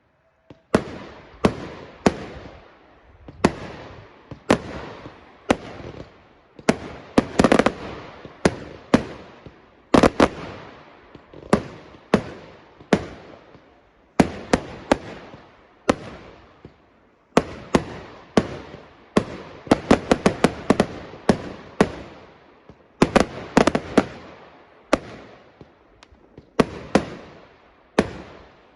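Fireworks display: a steady stream of sharp bangs from firework bursts, each trailing off in a rolling echo. Now and then several go off in rapid clusters.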